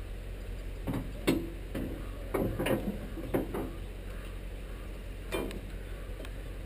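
A handful of short knocks and clicks from a worker moving about and handling rigging gear in brush: a cluster between about one and three and a half seconds in, with one sharper click just past a second, and one more knock past five seconds, over a steady low hum.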